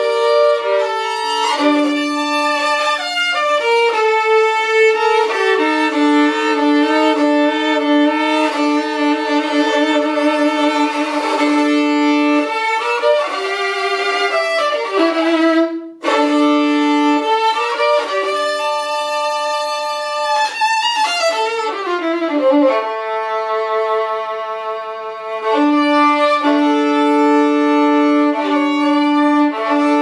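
Violin bowed through a melodic passage of held notes and quicker runs, with a short break about halfway through and notes sliding downward a few seconds later.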